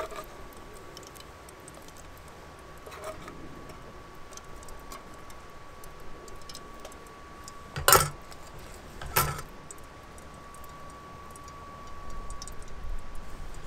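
Wood-burning Biolite CampStove 2 running, its fan humming on one steady high note under faint crackling ticks from the fire. Two sharp knocks a little over a second apart come just past the middle.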